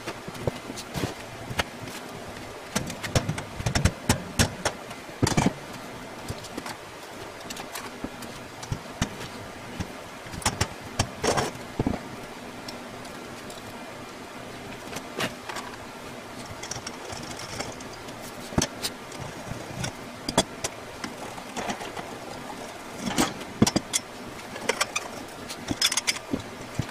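Metal clanks, knocks and rattles from a black wire shelving rack being handled, its posts and wire shelf knocking together. They come in irregular clusters with pauses between, over a steady faint hum.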